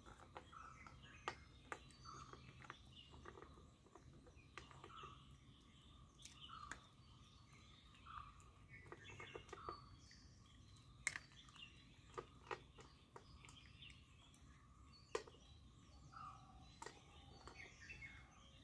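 A puppy eating from a stainless steel bowl: faint scattered sharp clicks and crunches as it chews and its mouth knocks the metal bowl, the loudest about eleven and fifteen seconds in. Birds chirp faintly in the background.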